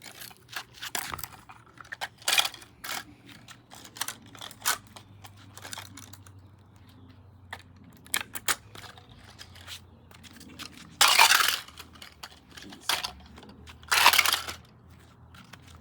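Plastic toilet fill valve being broken apart: scattered sharp cracks, snaps and clatters of plastic parts. Two longer, louder breaking bursts come about eleven and fourteen seconds in.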